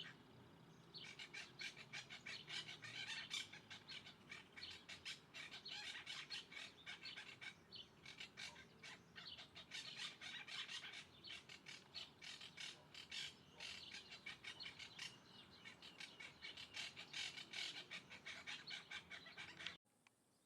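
Birds chirping and chattering in a dense run of quick short calls, cutting off suddenly near the end.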